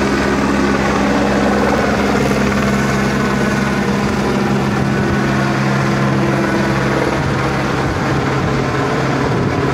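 Medical helicopter's rotor and turbine engine running loudly as it climbs away overhead, a steady drone with a second, lower tone joining about two seconds in.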